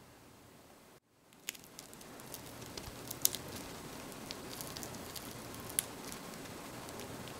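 Crisp baked crust of a chocolate chip cookie crackling in scattered small snaps as hands grip it and start to bend it apart, over a faint hiss.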